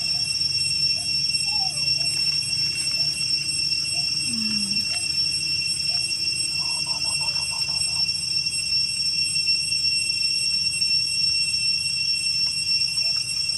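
Baby macaques suckling from a milk bottle, with faint small squeaks and a short run of rapid chirping calls near the middle, over a steady high-pitched drone of night insects.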